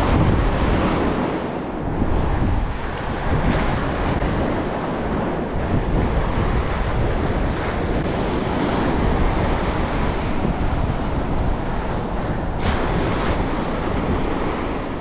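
Surf breaking along an open beach, mixed with wind buffeting the microphone in a steady, loud rush.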